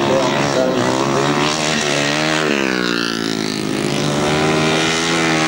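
Grasstrack racing motorcycle engines running hard. The pitch falls about halfway through as a bike passes, then climbs again near the end.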